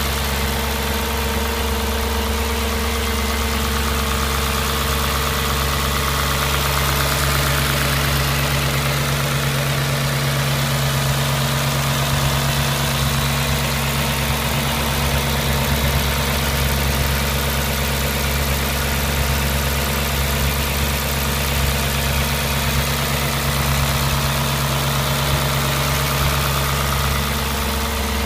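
Audi S4 B6's V8 engine idling steadily, with no revving.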